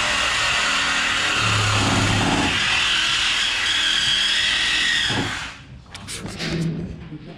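Power tool cutting through exhaust pipe to remove the old mufflers, running steadily and then stopping abruptly about five seconds in. A few short metallic clanks and knocks follow.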